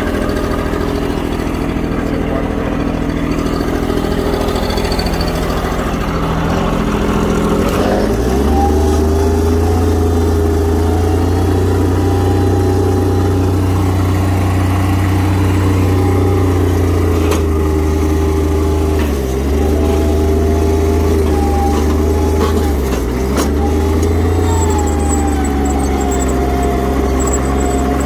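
Bobcat MT52 mini track loader's diesel engine running steadily; about eight seconds in, the engine speed rises and holds higher, with two brief dips in speed later on.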